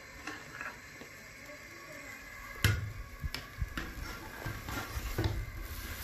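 A wire spider strainer knocking against a metal cooking pot as boiled dough sheets are scooped out of the water. There is a sharp knock about two and a half seconds in, then several lighter clanks, with water sloshing.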